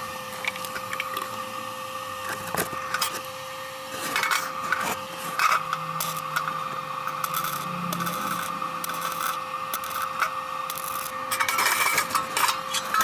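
Irregular scraping and clicking of hand metalwork on thin steel sheet, with a louder busy patch about four to five seconds in and again near the end, over a steady electrical hum.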